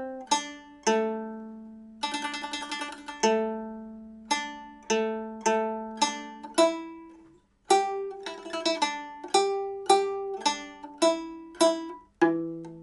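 Nanguan pipa with nylon strings and ox-bone frets playing a slow melody of single plucked notes, each ringing and fading. About two seconds in comes a quick run of rapidly repeated plucks, and there is a short break in the playing just past the middle.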